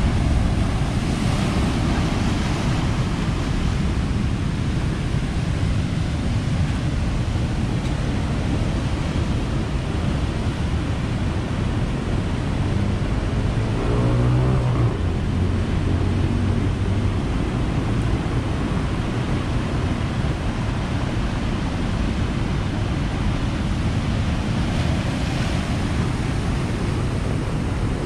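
Heavy storm surf breaking and foaming over a rocky shore: a steady, loud rush of water, with wind buffeting the microphone. About halfway through, a brief low pitched hum rises over it.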